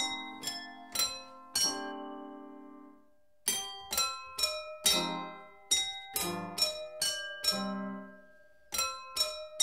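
Wine glasses struck by small hammers in a homemade keyboard-played glass instrument, playing a melody in single notes and chords. Each note is a bright clink that rings on and fades. The playing stops briefly about three seconds in, then resumes.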